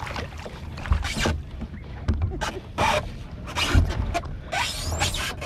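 Shallow water splashing and sloshing around a kayak as it is pushed off from a sandy beach, with irregular scrapes and a few dull thumps of the hull and gear.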